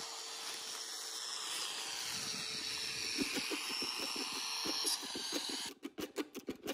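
A steady rushing hiss, with soft knocks and rattles as a metal wheelbarrow loaded with mortar is pushed over grassy ground from about three seconds in; a brief run of sharp clicks near the end.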